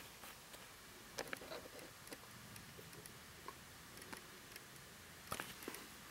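A few faint, scattered clicks and ticks over a quiet background.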